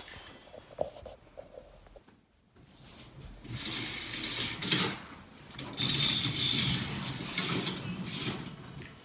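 Curtains being drawn shut along their rail: a run of sliding, rustling swishes that starts about three seconds in.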